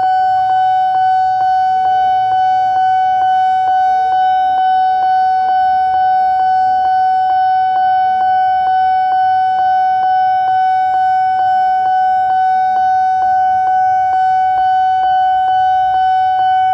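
Railway level-crossing warning bell ringing continuously: a rapid, evenly spaced run of identical electronic dings, signalling that the barrier is down for an approaching train. A faint public-address announcement of a departing train from the nearby station can be heard under it.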